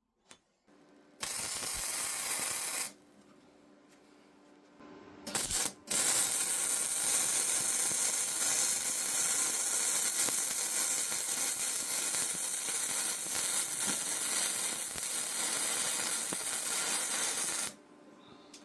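Electric arc welding steel spikes and plate: a steady crackling sizzle of the arc, a short weld of about a second and a half, a couple of brief tacks, then one long continuous bead of about twelve seconds that cuts off near the end.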